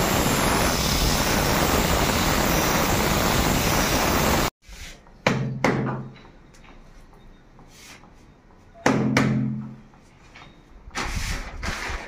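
Angle grinder scouring the glazed surface of old floor tiles to roughen them, a loud steady grinding that cuts off about four and a half seconds in. After it come a few sharp knocks with a brief low ring as tiles are handled and set down.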